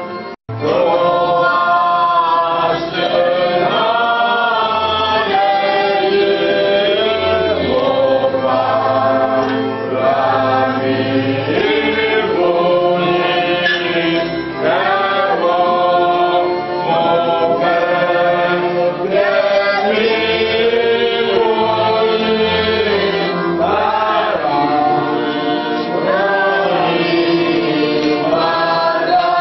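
Church choir singing a hymn in harmony over sustained low organ notes.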